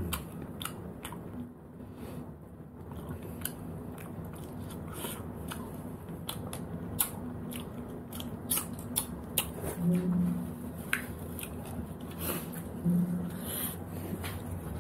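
Cooked sea snails being eaten by hand: a steady scatter of sharp clicks of shells and toothpick, with chewing and sucking. Two short hums come about ten and thirteen seconds in.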